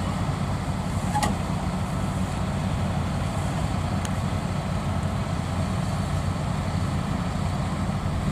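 Rice combine harvester's diesel engine running steadily at work, a constant low drone.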